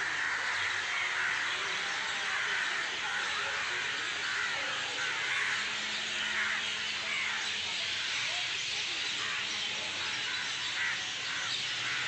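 A dense, steady chorus of many birds calling at once from a flock, with crow-like cawing among the calls.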